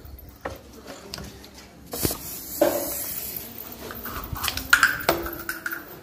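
Aerosol spray can hissing in short bursts, the longest about two seconds in, mixed with a few knocks and rubbing as the can is handled.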